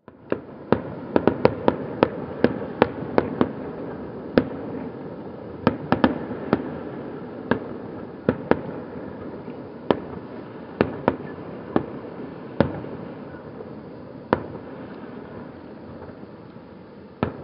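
Aerial fireworks exploding: a rapid string of sharp bangs over the first few seconds, then single bangs every second or two, with a steady background noise between them.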